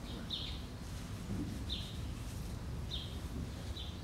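A small bird chirping: four short, high chirps spaced about a second apart, over a low steady hum.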